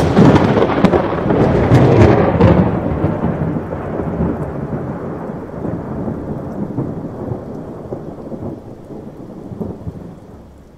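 Thunder: a sudden clap with sharp crackling over the first two seconds or so, then a low rolling rumble that slowly fades away.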